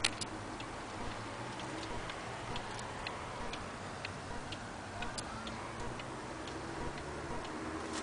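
Antique cuckoo clock's movement ticking steadily, about two ticks a second.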